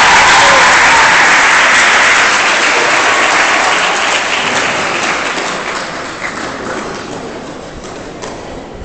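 Audience applauding, loud at first and gradually dying away.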